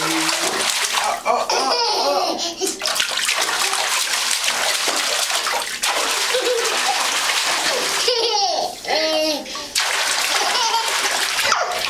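Bathwater being splashed hard and continuously by a toddler's hands and feet, a dense hissing wash of splashes that stops briefly a few times. In the pauses, about a second in and again past eight seconds, a young child's voice squeals briefly.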